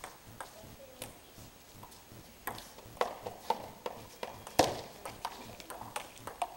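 Table tennis ball clicking off paddles and the table: a few scattered taps at first, then a quick rally of clicks about three a second, the loudest about two-thirds of the way through.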